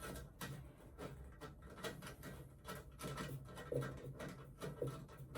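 Faint, irregular clicks and handling noises as a Jubilee clip (worm-drive hose clamp) is tightened around a diesel heater's exhaust pipe.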